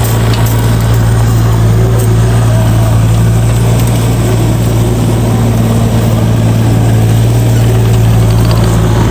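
Heavy equipment engine idling with a steady low hum.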